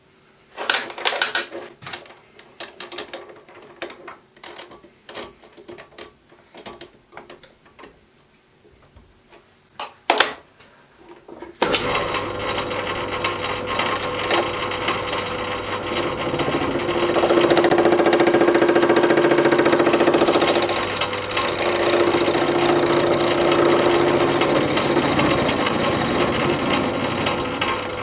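Scattered clicks and knocks as a cast part is set in a self-centring four-jaw chuck on a Myford lathe. About twelve seconds in, the lathe starts and runs steadily, facing the end of the part square. A ringing tone from the cut comes and goes twice.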